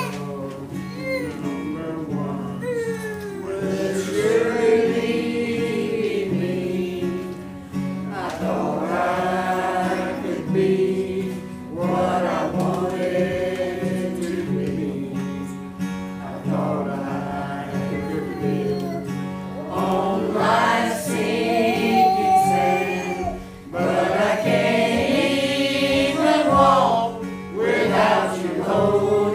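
A small choir of men's and women's voices singing together in phrases of a few seconds, accompanied by an acoustic guitar.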